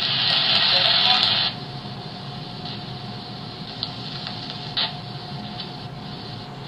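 Static hissing from the small speaker of an emergency crank radio on the AM band, with no clear station: loud for about a second and a half, then dropping to a softer steady hiss with a faint steady tone, and a short click about five seconds in. The antenna needs adjusting for good reception.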